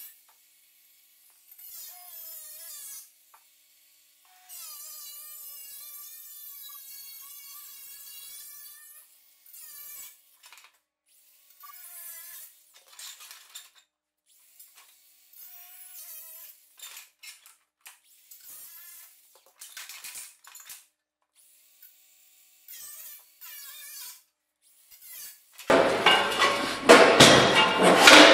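A tool cutting the old sheet-metal fender in short separate bursts, with a thin whine that wavers in pitch. Near the end the cutting turns much louder and harsher, with knocks.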